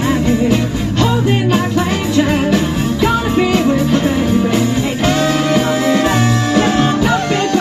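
Eleven-piece soul band playing live, a driving dance beat with bass, guitar and drums, and singing over it.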